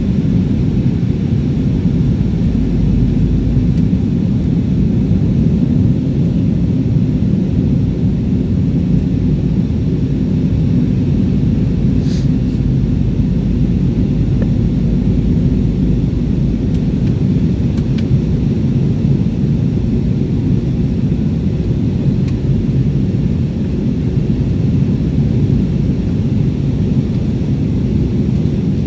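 Steady low rumble inside the cabin of a jet airliner on its descent to land: engine and airflow noise.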